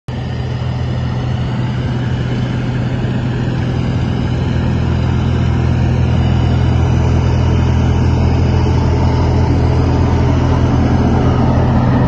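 Jensen trailer-mounted wood chipper's engine running steadily with a deep, even drone, slowly growing louder.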